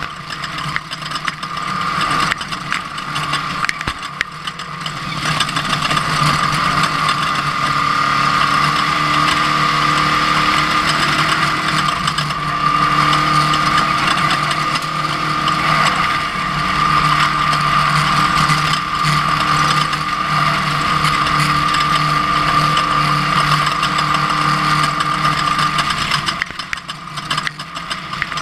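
Ford Ranger off-road race truck running hard over rough ground: a steady engine drone with a high whine over it and constant rattling and clattering. The sound eases off briefly about four seconds in and again near the end.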